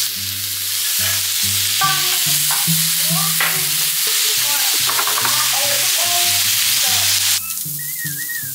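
Pork belly sizzling as it fries in a hot pan: a loud, steady frying hiss that drops sharply about seven seconds in.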